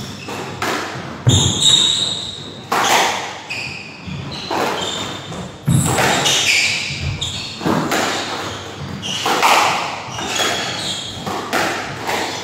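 Squash rally: the rubber ball struck by rackets and smacking off the court walls about once a second or so, each hit echoing in the enclosed court.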